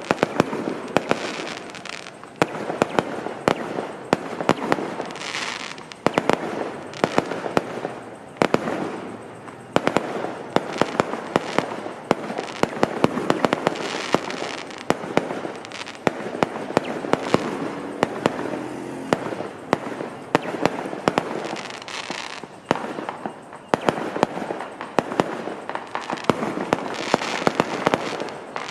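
Fireworks going off in a dense, continuous barrage of sharp bangs and crackles, several reports a second with no pause.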